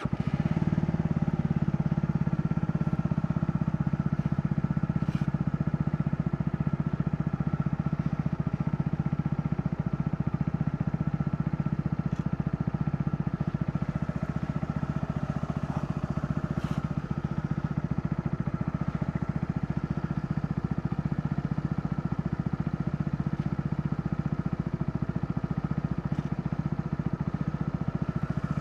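Voge 125R motorcycle's single-cylinder 125 cc engine running steadily at an unchanging idle, with no revving; the sound comes in abruptly right at the start.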